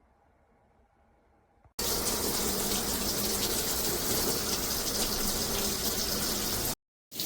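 Water spraying steadily from a high-pressure handheld shower head. It starts abruptly about two seconds in, drops out for a moment near the end, then resumes.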